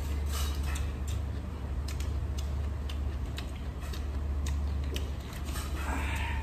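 Eating sounds: chopsticks clicking against a metal-rimmed rice bowl and chewing, heard as irregular sharp ticks a few times a second, over a steady low hum.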